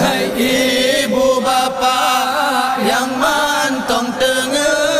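Male voice singing a slow, ornamented Acehnese call into a microphone, holding long wavering notes; it is a call to wake sleepers for the pre-dawn sahur meal, with the words 'hai ibu bapak yang mantoeng teungeuet' (O mothers and fathers still asleep).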